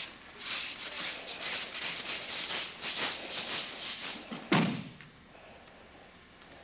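Bare feet and judo uniforms brushing and sliding across the mat for about four seconds, then one loud thud as a body lands on the mat in a fall.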